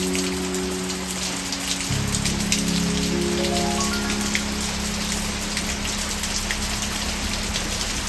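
Steady rain falling, with individual drops pattering close by, over soft background music of long held low notes that change to a new chord about two seconds in.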